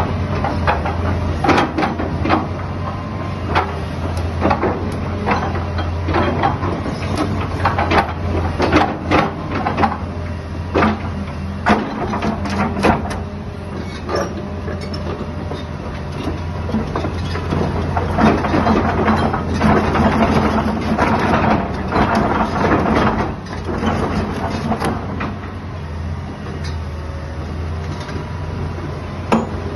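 Hitachi Zaxis ZX200 crawler excavator's diesel engine running steadily under hydraulic load as the boom and bucket press into the ground and lift the tracks. Repeated sharp metallic clanks and knocks from the tracks and working gear come through irregularly, thickest in the second half.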